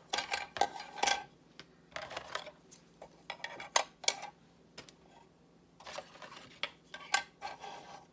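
Plastic cookie cutters being set down and shuffled on a wooden tabletop: scattered light clicks and clatters in several short clusters, with brief pauses between them.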